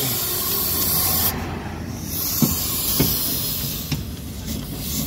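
Pneumatic impact wrench running as it undoes bolts on a car's rear axle hub, mostly a steady hiss of exhaust air, with a couple of light knocks about two and three seconds in.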